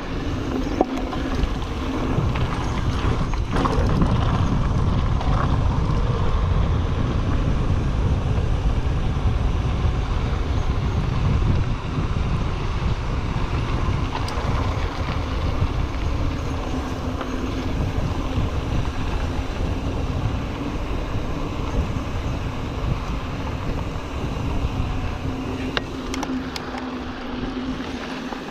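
Rolling noise of a 2021 Giant Trance X mountain bike riding a dirt trail: tyres rumbling over gravel and wind buffeting the handlebar-mounted camera microphone, with a steady low hum underneath.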